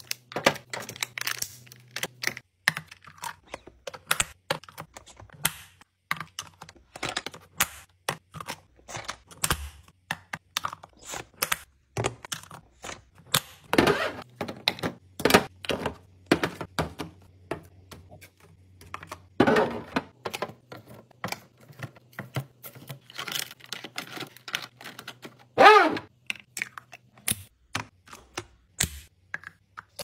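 Plastic food containers and yogurt cups being handled and set into fridge drawers: a steady run of light clicks and taps, with snaps of container lid latches and a few louder plastic clatters, over a faint low hum.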